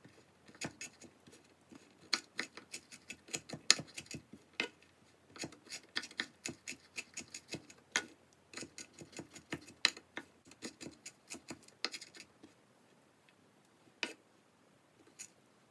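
Kitchen knife chopping a red hot pepper finely on a bamboo cutting board: quick runs of sharp taps of the blade on the wood, several a second, thinning to a few single taps near the end.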